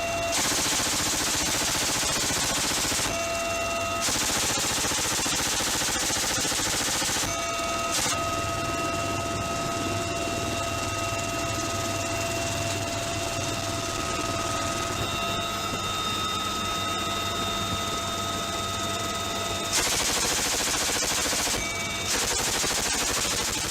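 M134 minigun firing in bursts of two to three seconds each, its very high rate of fire blending into one continuous buzzing stream: twice near the start and twice near the end. Between the bursts a steady high mechanical whine carries on, longest through the middle of the stretch.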